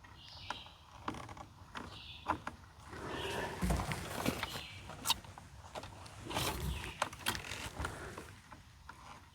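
Irregular small metal clicks, taps and scraping as a screwdriver works a screw into the igniter mounting at the refrigerator's burner, with rustling from handling the parts and gas hose.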